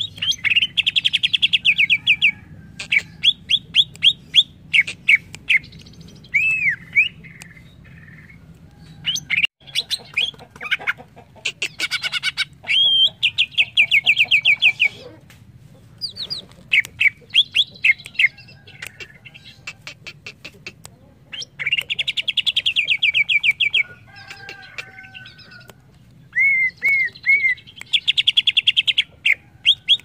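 Greater green leafbird (cucak ijo) singing: loud phrases of rapid trilled notes, each lasting one to three seconds, separated by short pauses, with a few single sweeping whistles between them.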